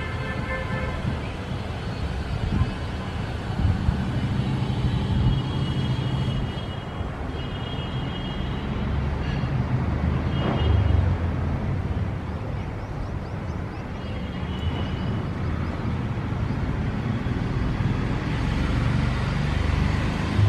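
City street traffic: a steady rumble of cars and other motor vehicles passing, with a few brief high tones over it.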